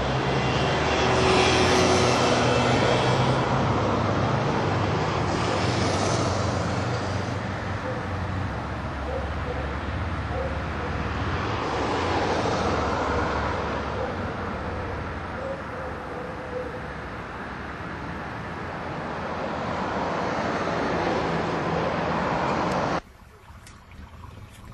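Road traffic: vehicles passing one after another over a steady low engine hum, cutting off suddenly near the end.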